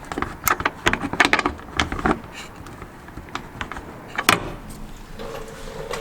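Quick, irregular clicks and metallic rattles of a 1/4-inch ratchet and 7mm socket snugging a wheel well liner screw, then one sharp click about four seconds in.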